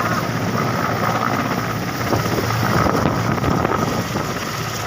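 Helicopter running on the ground: a steady rotor and engine noise with a high whine held throughout, and wind buffeting the microphone.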